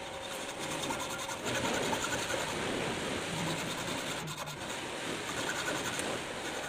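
Hand hacksaw cutting through a flat metal bar held in a bench vise: a steady back-and-forth rasp of the blade's teeth on metal, starting about half a second in.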